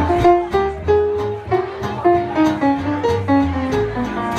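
Live swing band playing an instrumental break: acoustic guitar strumming a steady beat under a melody of held notes, with a moving bass line and the keyboard.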